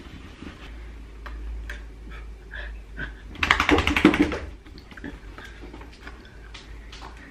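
Pitbull puppy shaking herself off after a bath, wet from her towel-drying: about a second of rapid flapping of ears and coat a little past the middle, the loudest sound. Light taps and clicks are scattered around it.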